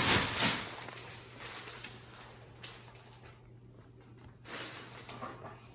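Clear plastic bag rustling and crinkling as a cat climbs into it and scrambles around inside. The crinkling is loudest at the start, dies down, and flares again about four and a half seconds in, over a low steady hum.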